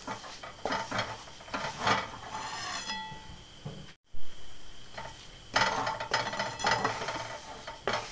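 Wooden spatula scraping and stirring a thick ragi flour mixture around a steel kadhai in uneven strokes. About four seconds in the sound cuts out briefly, then comes a sharp knock.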